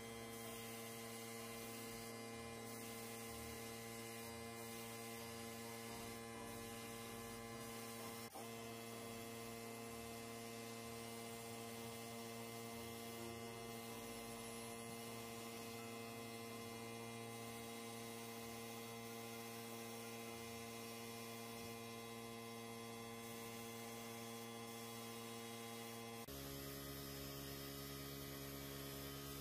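Steady electrical hum made of several even tones, with a faint click about eight seconds in and a slight change in the hum near the end.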